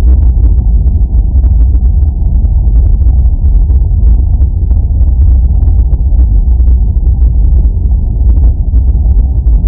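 Steady low rumble of jet airliner cabin noise in cruise flight: engine and airflow noise heard from inside the cabin.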